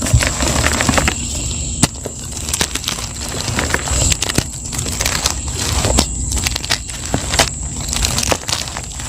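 Soft blocks of plain gym chalk being crushed and crumbled: steady crunching with many sharp crackles, over a thin steady high whine.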